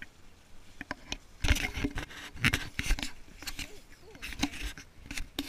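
Leaves and branches brushing and scraping against a body-worn action camera as someone pushes through bushes, in irregular bursts of rustling and scratching.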